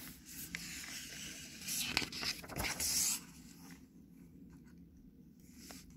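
A picture book's page being turned and pressed flat by hand: a soft rustling and sliding of paper for about three seconds, then only faint room noise.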